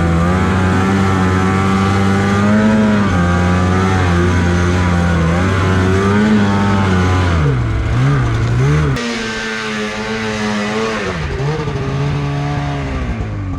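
Snowmobile engine running at high revs, its pitch wavering as the throttle changes, with a quick series of revs up and down about eight seconds in.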